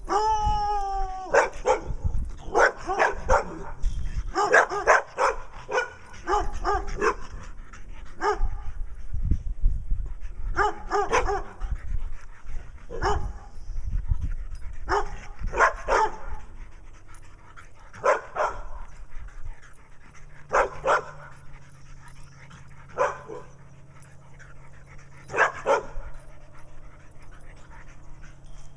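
A dog barking repeatedly, opening with a short rising yelp, then in quick clusters for the first half and single barks every couple of seconds after that.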